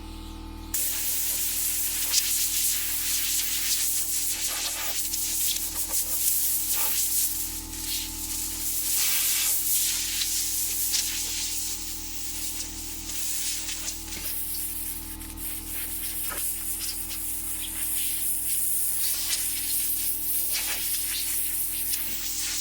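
Compressed air hissing from a blow nozzle in long, uneven blasts, blowing sawdust off a table saw; it starts about a second in.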